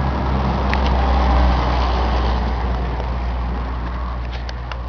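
Case IH 2594 tractor's diesel engine idling with a steady low hum, its noise swelling about a second in and easing off toward the end.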